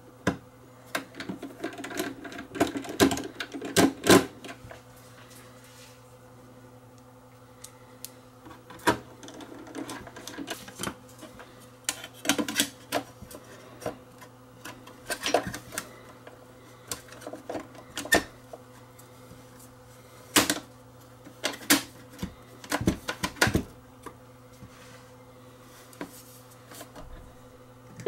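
Hand-tool work on a reel-to-reel tape deck's metal front panel as its screws go back in and the panel is seated: scattered clicks, taps and scrapes, with the loudest cluster of knocks about four seconds in. A faint steady hum lies underneath.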